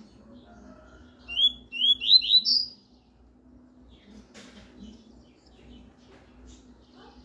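Double-collared seedeater (coleiro) singing a short 'tuí-tuí' phrase about a second in: four quick rising whistled notes and a last, higher one, over a faint steady low hum.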